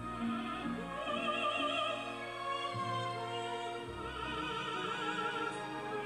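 Classical vocal music, a sustained voice with wide vibrato over an orchestra, played back through a pair of Tannoy Cheviot loudspeakers and picked up in the room.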